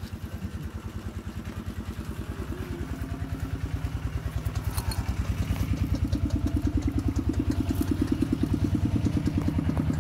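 A small engine running at idle with a steady rapid thudding, growing louder about halfway through.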